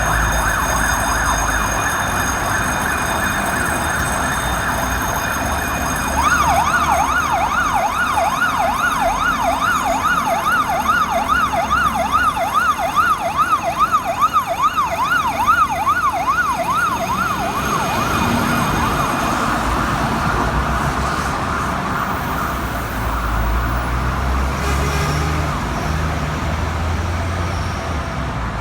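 Fire engine electronic sirens sounding. About six seconds in, a fast yelp sweeps up and down about three times a second, then fades out after about eighteen seconds, leaving engine and traffic rumble.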